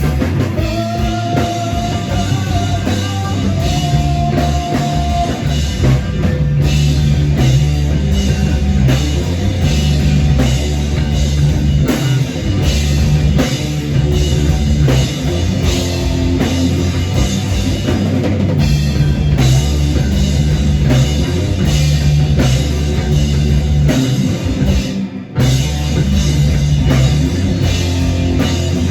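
Rock band playing live: an instrumental passage with a drum kit, bass and electric guitar, with a held guitar note near the start and the band stopping for an instant about 25 seconds in.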